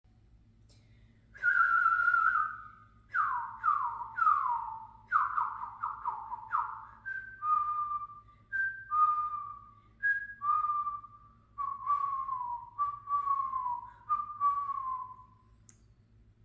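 A young girl whistling a tune by mouth, starting about a second and a half in: a long held note, then a run of quick downward-sliding notes, then pairs of a short higher note followed by a longer lower one.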